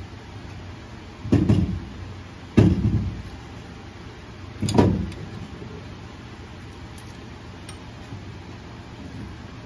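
Three dull metal thuds, about a second or two apart, as the Eaton Truetrac carrier with its ring gear and bearings is rocked and pushed into the Super Duty rear axle housing to seat it.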